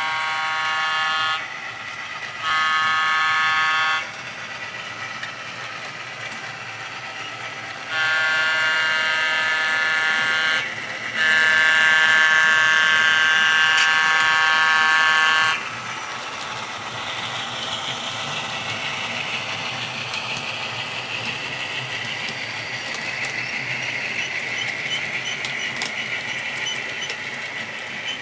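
Sound-equipped model GP9 diesel locomotive sounding its chime horn in four blasts, the last two longer and the fourth the longest. After that the horn stops and the train keeps rolling along the track with a steady rumble.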